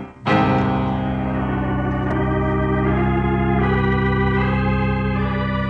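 Dramatic organ music sting. A loud chord is struck about a quarter second in and held over a steady bass note, while the upper notes change in steps.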